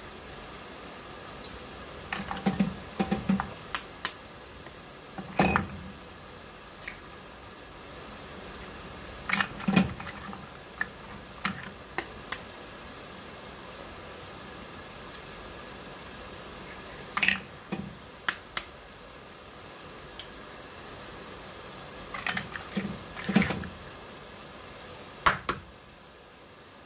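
Eggs cracked one after another into a simmering clay tagine: sharp taps of shells knocked against a rim, in small clusters every few seconds, over the steady hiss of the bubbling sauce.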